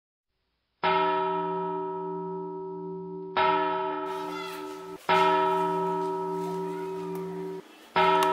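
Church bell struck four times a couple of seconds apart, each stroke ringing on in several steady tones and fading slowly until the next.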